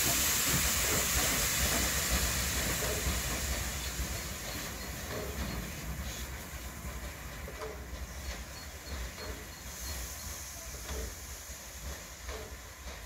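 DB class 23 steam locomotive hissing steam from its cylinder drain cocks as it moves off, the hiss and rumble fading steadily as it draws away. Scattered sharp clicks of the wheels over the rail joints run through the fading sound.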